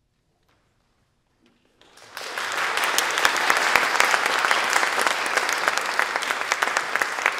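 Near silence for about two seconds, then audience applause starts and goes on steadily, with many separate claps.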